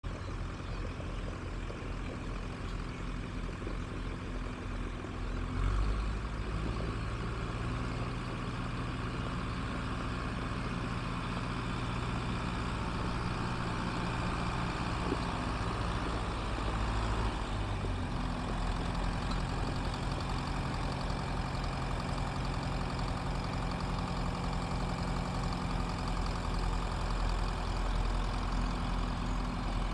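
John Deere diesel tractor engine running as the tractor drives. Its note changes and grows louder about six seconds in and shifts again near eighteen seconds.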